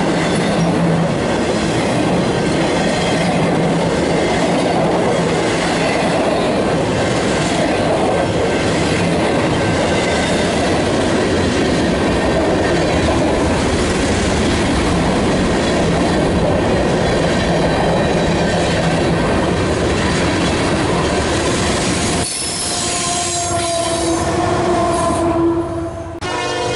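Freight cars of a long mixed freight train rolling past close by: steady wheel-on-rail noise with squealing wheels and clickety-clack over the rail joints. After about 22 seconds the rolling stops abruptly and a locomotive horn sounds a steady chord as a Norfolk Southern-powered freight passes.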